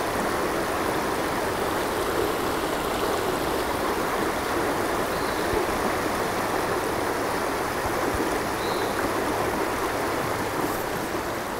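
A shallow river flowing steadily over a stony bed, a constant rush of water.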